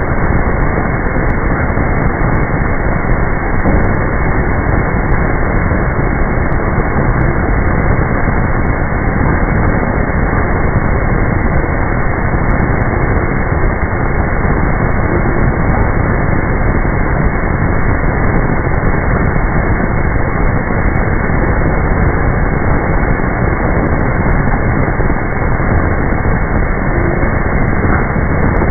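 Steady, loud mechanical noise of an automatic brass hot forging machine running, with no distinct blows standing out.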